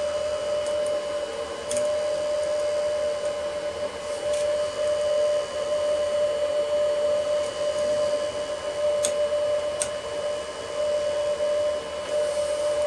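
Alfawise U10 3D printer's hotend cooling fan and extruder running while filament feeds out of the nozzle: a steady whine over even fan noise, with a few faint clicks.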